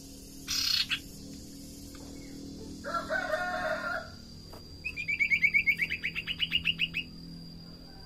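Sirtu (common iora) calling: a short harsh rasp about half a second in, a lower buzzy call about three seconds in, then a rapid chattering run of about twenty quick notes lasting about two seconds.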